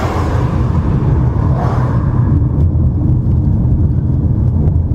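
Car driving, heard from inside the cabin: a steady low rumble of engine and tyres on the road, with a rushing hiss in the first two seconds or so that fades away.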